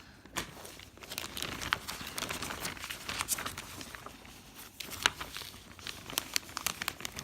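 Plastic packaging crinkling and rustling as it is handled, with many small sharp crackles.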